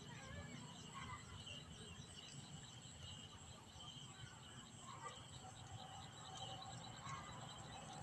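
Faint insects, crickets or similar, chirping in a rapid, even pulsing rhythm, with a few short bird chirps now and then.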